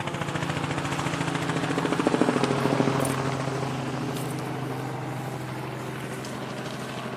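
Engine running with a steady pulsing drone, swelling to its loudest about two seconds in and then easing off.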